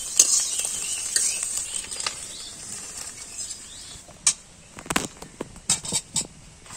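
A vegetable fry sizzling in a metal karai as a metal spatula stirs it. The sizzle fades over the first few seconds. About four seconds in, a series of sharp clinks and scrapes follows as the spatula scrapes the food out of the pan onto a steel plate.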